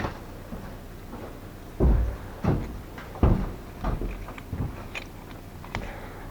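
A series of short clunks and knocks, about six or seven spread over four seconds, as gearbox parts are handled and fitted during reassembly of the gearbox.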